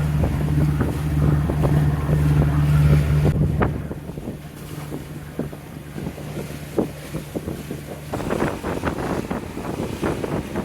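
Boat engine running at a steady pitch, with wind buffeting the microphone. The engine drops in level about three and a half seconds in and cuts out around eight seconds, leaving wind noise and water splashing against the hull.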